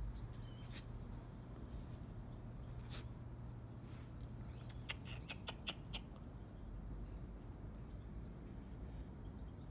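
Faint, scattered short high chirps and clicks from small birds, a handful in all and most of them about five to six seconds in, over a steady low hum that fades out a little after halfway.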